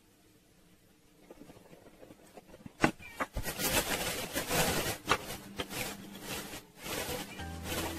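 Plastic bag of frozen strawberries crinkling and rustling as it is handled and opened, with a sharp click about three seconds in. Music comes in near the end.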